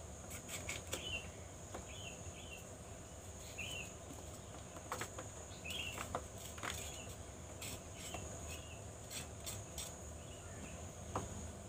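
Steady high-pitched insect drone with a bird giving short chirps every second or two, and scattered sharp clicks of a small knife cutting and peeling a papaya.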